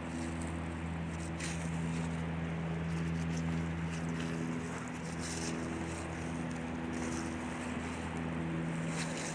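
A steady low hum with several even overtones under a hiss, unchanging throughout, with a few faint clicks.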